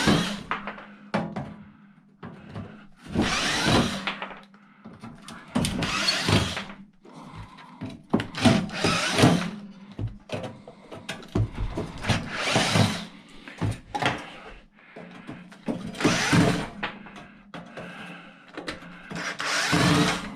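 A power drill/driver backing screws out of a battery charger's metal case, running in short bursts of about a second, roughly every two to four seconds.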